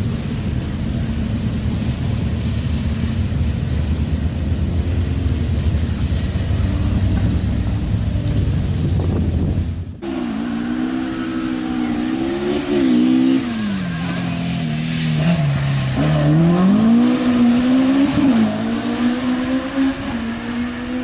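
Ford Escort Mk2 rally car engines at a sprint. For the first half there is a steady low rumble. After a sudden break about halfway, one engine revs up and down several times, its pitch climbing and dropping with each gear change as the car runs hard along the course.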